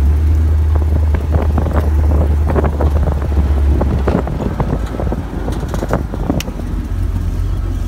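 Open off-road buggy driving on a bumpy dirt road, heard from aboard: engine rumble and wind on the microphone, with many short scattered knocks and rattles. The deep rumble drops off about four seconds in.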